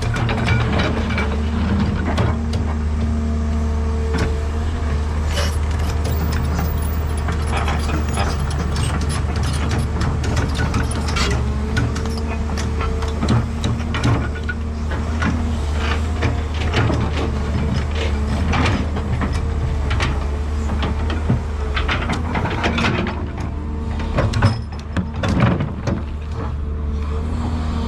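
Komatsu PC210LC crawler excavator's diesel engine running steadily under working load, with a constant whine above the engine drone and repeated irregular clanks and knocks as it works.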